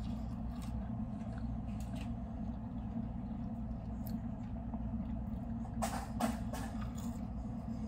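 Steady low background hum, with a few soft crackles from chewing and handling a chicken nugget, the clearest cluster about six seconds in.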